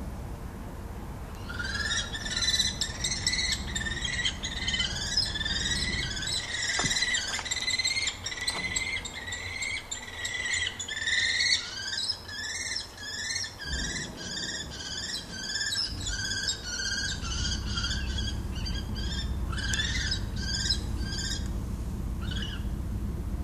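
Common kestrels calling in a long run of rapid, repeated high-pitched notes, a few a second, starting about a second and a half in and stopping shortly before the end. This is the calling of a squabble over prey, as a second kestrel tries to take the first one's mouse. A low rumbling noise lies underneath.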